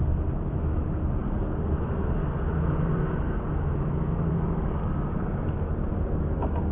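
Steady low rumble of motor traffic on the toll-road bridge, with a faint engine hum rising and fading in the middle.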